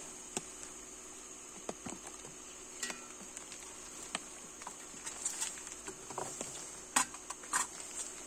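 Scattered light clicks and knocks from gear being handled in a small aluminium boat, the sharpest about seven seconds in, over a steady high-pitched insect drone.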